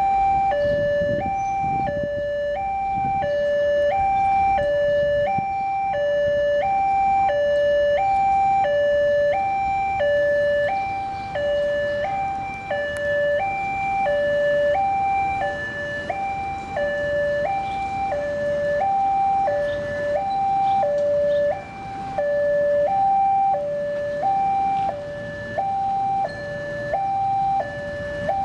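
Indonesian railway level-crossing alarm sounding its electronic two-tone warning, a lower and a higher note alternating steadily about twice a second. It is the signal that the barriers are down and a train is approaching.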